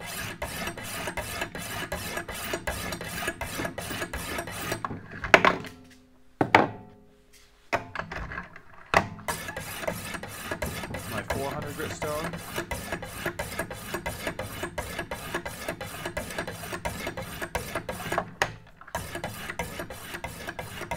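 Diamond sharpening stones of a Wicked Edge guided knife sharpener rasping along a knife edge, in quick alternating left-right strokes about four a second. About five seconds in the strokes stop for a stone change, with a few sharp clacks as the stone handles are lifted off and set on. The strokes then resume on the finer stones.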